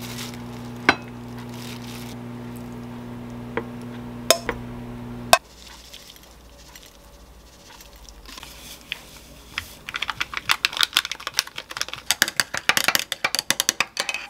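A steady electrical appliance hum with a few sharp clinks of dishes, cutting off suddenly about five seconds in. From about ten seconds on, a fast, irregular run of light clicks and clatter.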